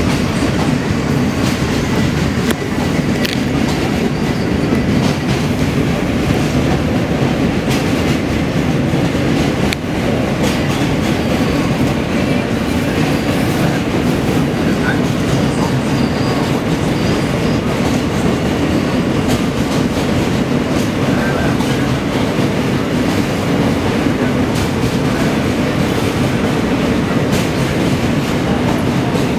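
New York City subway J train running across the Williamsburg Bridge, heard from inside the car: a loud, steady rumble of wheels on rail, with scattered clicks and clacks from the track.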